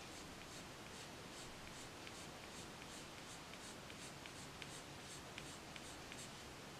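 Faint scratching of a Prismacolor colored pencil on paper, in short, quick flicking strokes at about two to three a second, with small ticks as the tip lands and lifts.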